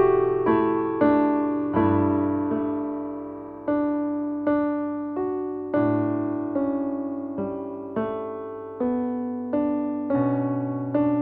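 Background piano music: a slow, gentle melody of single notes and chords, each struck and left to ring and fade before the next.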